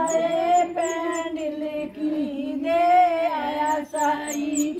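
A woman's voice singing a slow melody in long, held notes that waver in pitch, with short high chirps about a second in and near the end.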